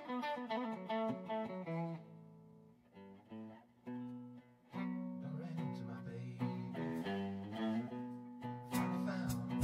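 Electric guitar playing a blues intro, chords and single-note lines. About two seconds in it drops to a few quiet, sparse notes, and then fuller chords pick up again a little before the five-second mark.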